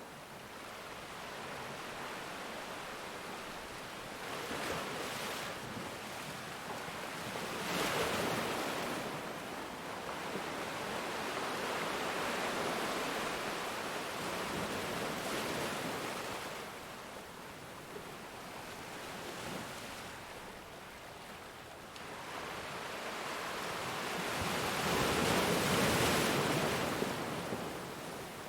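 Ocean waves breaking on a shore: a continuous rushing wash of surf that swells and fades, with a few waves breaking more strongly, the loudest near the end.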